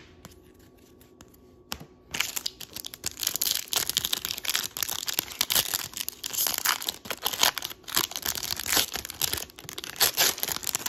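A trading-card pack's wrapper being torn open and crinkled by hand: a dense run of crackling begins about two seconds in, after a quiet moment with a couple of light clicks.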